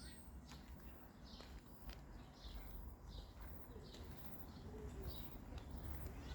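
A small bird chirping over and over, about two short high chirps a second, over a low outdoor rumble with a few faint clicks.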